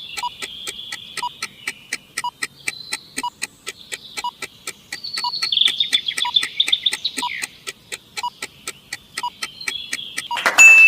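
Countdown-timer sound effect: fast even ticking, about four ticks a second, with a soft beep roughly every 0.7 s over high warbling chirpy tones. About half a second before the end, a loud noisy burst cuts in.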